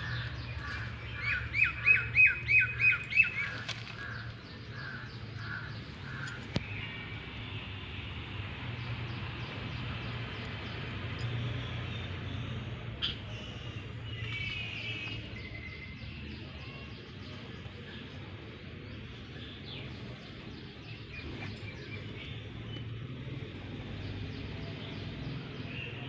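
A bird calling a quick series of about seven repeated notes in the first few seconds, with a few fainter calls later, over a steady low hum.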